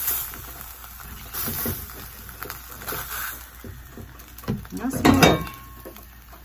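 Hot frying pan with burnt residue sizzling faintly on the burner, with a short mumble of a voice about five seconds in.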